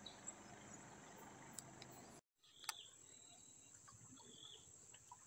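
Near silence, with a faint steady high-pitched insect drone. The sound cuts out completely for a moment about two seconds in, and a few faint clicks follow.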